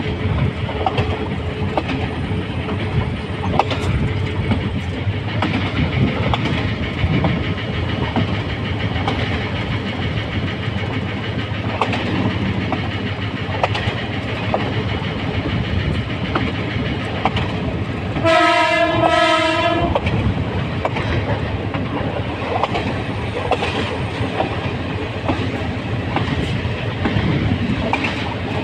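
Diesel locomotive running along the track, heard from the cab: a steady rumble with irregular clatter of wheels over the rails. About two-thirds of the way through, its horn gives two short blasts in quick succession.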